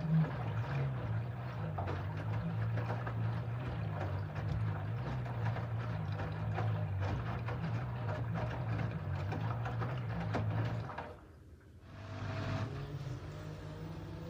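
LG F13D9NC front-loading washing machine tumbling wet clothes during a rinse: a steady motor hum with water sloshing and the load slapping in the drum. About eleven seconds in the drum stops briefly, then the final spin begins with a motor whine.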